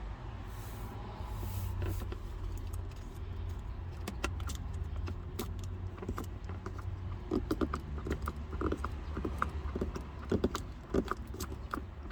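Vinyl wrap film crinkling and crackling as fingers press and smooth it around the shift knob dial, in short irregular clicks that grow denser about halfway through, over a steady low hum.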